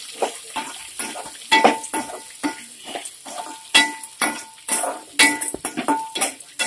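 Chopped onions, green chillies and curry leaves sizzling in hot oil in a metal kadai while a metal ladle stirs and scrapes them. The ladle strikes the pan about twice a second with short ringing clinks.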